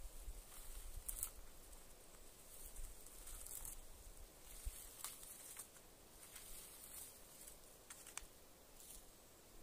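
Faint, short rustles and crackles of blueberry bushes and leaves being handled while picking berries with a plastic berry-picker scoop.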